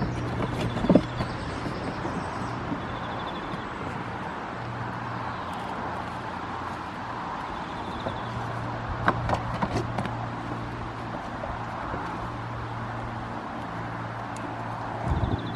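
Goat kids' hooves knocking on a wooden platform: a few sharp knocks, one about a second in, a cluster around the middle and more near the end. Under them runs a steady low hum with a traffic-like background noise.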